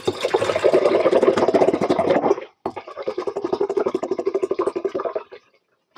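Matcha green-tea water glugging out of an upturned plastic bottle into a large glass mug, a fast run of gurgles. It comes in two runs with a brief break about two and a half seconds in, and stops a little after five seconds.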